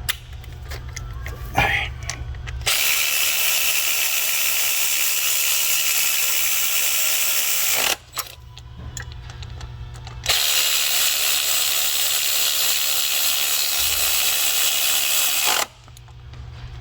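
A power ratchet run in two long bursts of about five seconds each, driving fasteners.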